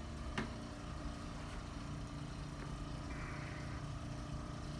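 Steady low mechanical hum, with one sharp click about half a second in.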